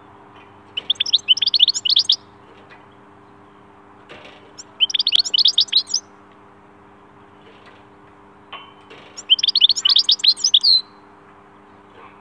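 Goldfinch singing three short bursts of rapid, high twittering notes, each about a second and a half long, with pauses of a few seconds between them.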